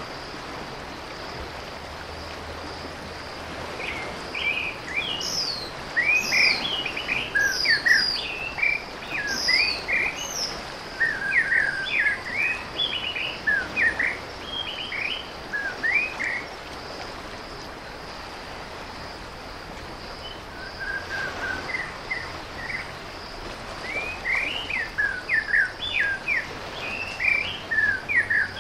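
Small birds chirping and twittering in quick, overlapping calls over a steady high trill of insects. The chirping thins out about halfway through and picks up again near the end.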